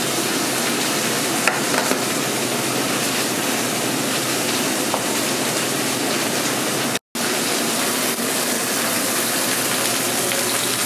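Steaks sizzling in butter on a flat-top griddle, a steady even hiss, broken by a brief total cut-out a little after seven seconds.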